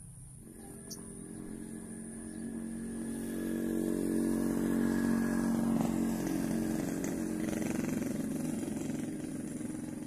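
A motor vehicle's engine passing by, growing louder over the first few seconds, loudest about five to six seconds in, then fading away.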